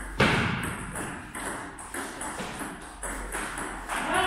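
Table tennis rally: a celluloid ball clicking off paddles and the table in a quick, even run of sharp ticks, about two to three a second. A man's voice calls out briefly near the end.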